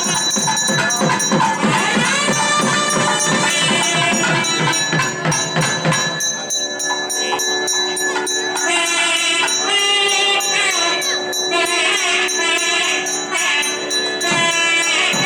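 Devotional music with a pitched melody over rhythmic percussion.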